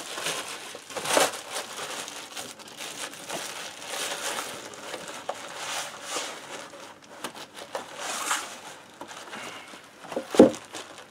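Plastic wrapping crinkling and a cardboard sleeve rustling and scraping as a boxed part is handled and slid back into its packaging, with one sharp thump near the end.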